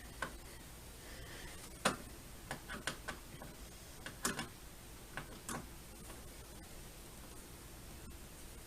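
Scattered light clicks and taps, about eight at irregular intervals, from a screwdriver and screws being worked on a plastic TV stand base.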